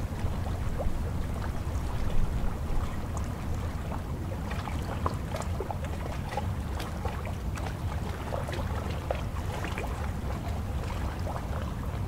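Choppy water lapping and splashing irregularly against a concrete ramp at the water's edge, over a steady low rumble of wind on the microphone.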